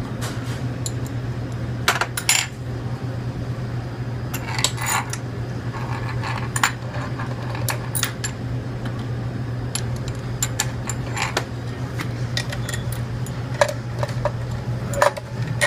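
Ratchet wrench and socket working the bolts on a metal tomato slicer, giving irregular sharp metallic clicks and clinks, some in quick clusters, over a steady low hum.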